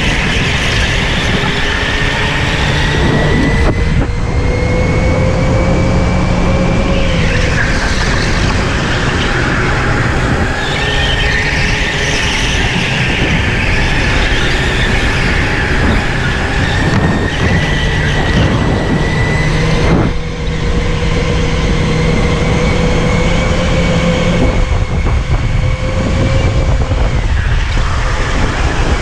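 Electric go-kart heard onboard: its motor's whine slowly rises and falls in pitch with speed, dipping about seven seconds in and again near the end, over a constant rumble from the chassis and track. Bursts of tyre squeal come through the corners.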